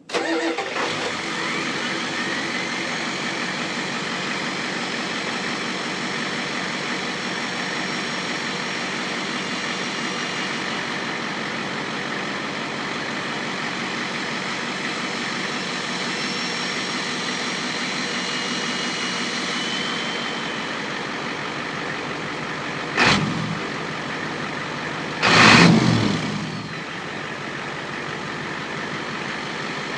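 Ford F350's 7.3L IDI V8 diesel with an added Holset turbocharger running, faint high whistling tones from the turbo over the engine. Near the end come two short, louder bursts, the second lasting about a second and falling away in pitch.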